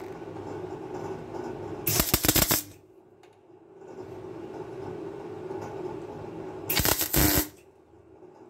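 MIG welder tacking a steel repair panel onto a vehicle chassis: two short bursts of crackling arc, each under a second and about five seconds apart, with a steady low hum between them.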